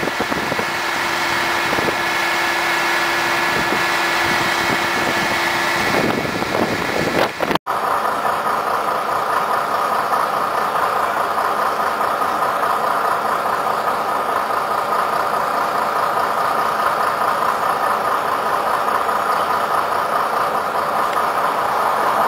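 Steady hum of a stationary electric passenger train's onboard equipment at a station platform, with a held tone and a few light clicks. After a sudden cut, a similar steady drone carries a higher whine, and at the very end another train begins to rush past.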